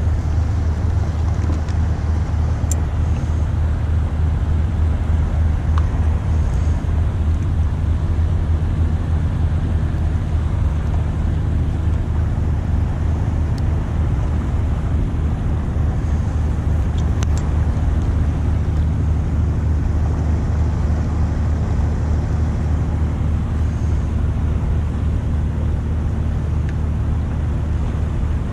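Diesel engine of a passing inland cargo barge: a steady low drone.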